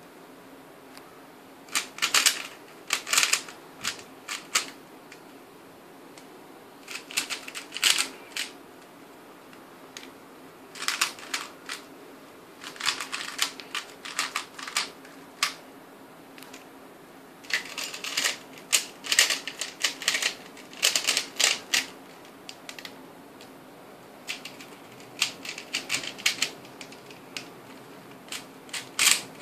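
Plastic 3x3 speed cubes clicking rapidly as their layers are turned. The clicking comes in bursts of one to four seconds, each burst one OLL algorithm executed on a cube, with short pauses between them.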